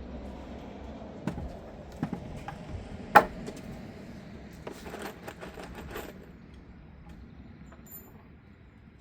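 A series of sharp knocks and light metallic clinks from wooden boards and screws being handled during assembly, the loudest knock about three seconds in and a quick cluster around five to six seconds in.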